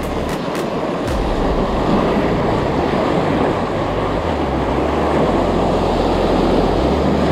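Sea surf surging and washing over shoreline rocks close by, with wind rumbling on the microphone.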